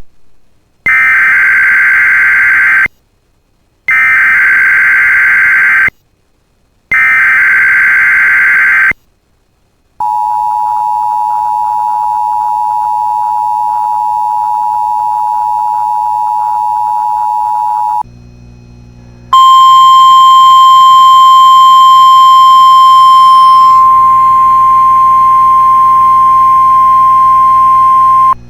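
Emergency Alert System tones for a test tornado warning. First come three SAME digital header bursts, each a screeching data warble about two seconds long. Then the two-tone EAS attention signal holds steady for about eight seconds, and after a moment of low hum the single steady 1050 Hz NOAA Weather Radio warning alarm tone sounds for about nine seconds and cuts off abruptly.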